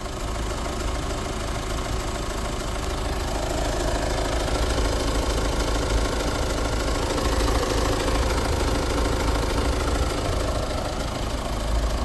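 Opel 2.0 CDTI B20DTH four-cylinder turbodiesel idling steadily at operating temperature. Its camshaft timing chain is stretched and has worn against the block.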